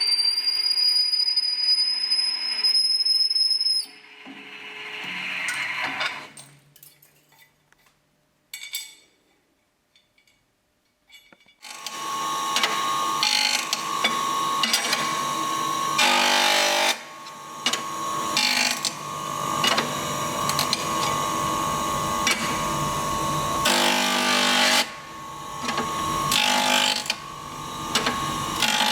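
Electric sander working on aluminium plates: a whine rising in pitch that stops abruptly about four seconds in, then after a few quiet seconds a long stretch of steady machine running, with louder surges twice.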